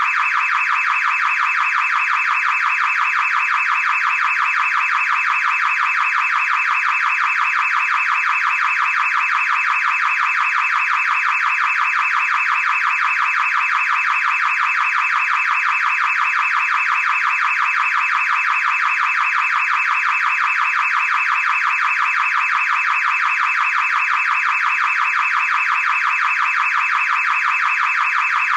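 Car alarm siren sounding without a break: a fast, unbroken warbling tone that holds steady.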